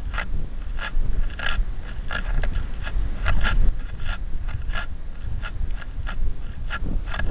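Wind rushing over a rocket's onboard camera as the model rocket comes down, a steady low rumble with short rustling clicks about twice a second.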